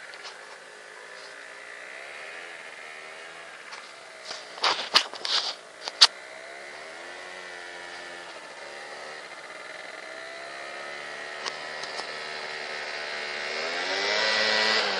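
Piaggio Typhoon scooter engine approaching, its pitch rising and falling as it revs, growing louder near the end as it draws close. A few sharp knocks about five seconds in are the loudest sounds.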